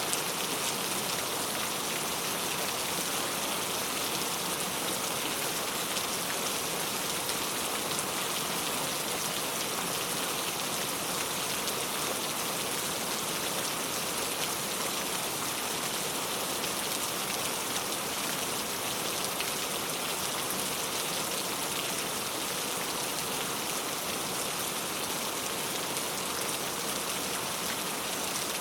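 Heavy rain falling steadily, a dense even hiss of drops with no thunder or breaks.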